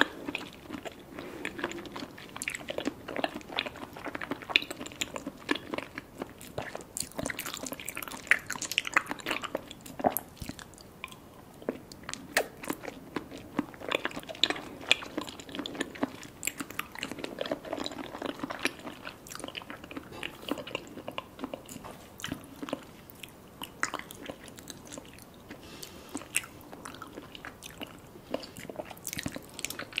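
Close-miked chewing of Kyoho grape jelly balls: wet, squishy mouth sounds with many small sharp clicks as the jelly is bitten and mashed.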